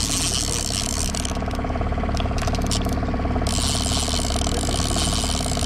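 Okuma Magda Pro line-counter trolling reel being cranked, its gears clicking rapidly, over the steady running of the boat's outboard motor.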